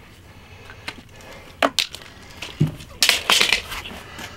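Sharp clicks and knocks from handling a tape measure and metal hardware against the dog house panels, with a short rattling clatter about three seconds in.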